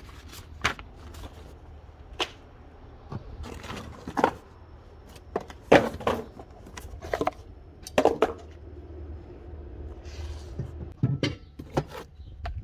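Cardboard packaging and parts being handled: paper and cardboard rustling, with scattered knocks and taps as pieces are lifted out of the box.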